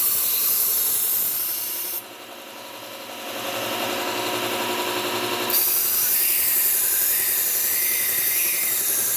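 Global stainless kitchen knife being ground on a running 3M Cubitron II P120 belt of a low-speed belt sander, a steady gritty hiss as the edge is worked up to a burr. The blade lifts off about two seconds in, touches back lightly, then goes back on for a full pass a little past halfway.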